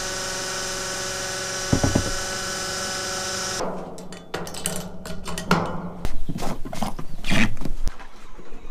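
Electric fuel transfer pump on a farm fuel tank running with a steady hum as fuel flows through the nozzle into a tractor's tank, then shutting off about three and a half seconds in. A knock comes about two seconds in, and irregular knocks and clatter follow near the end.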